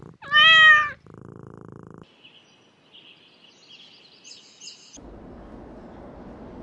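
A cat meows once, a single loud call just under a second long. A low, even purr-like rumble follows, then faint high bird chirps, then a steady hiss.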